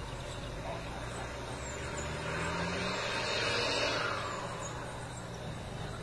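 A road vehicle passing: a rush of noise that swells from about two seconds in, peaks near four seconds and fades away, over a steady low hum. Faint, short high chirps run throughout.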